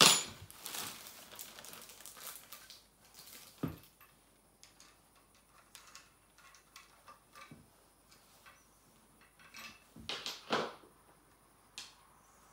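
Plastic wrapping crinkling as parts of a baby changing table are handled during assembly, with a sharp click at the start, a knock a few seconds in, and scattered small clicks from the wooden leg and screwdriver.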